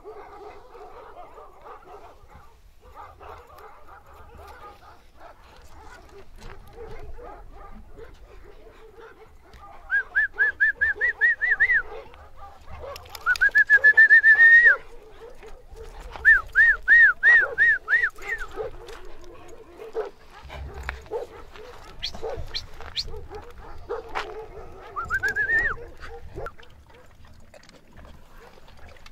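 Kangal sheepdogs whining in runs of quick, high-pitched yelps. The loudest is one long rising whine about halfway through, and a shorter rising whine comes near the end.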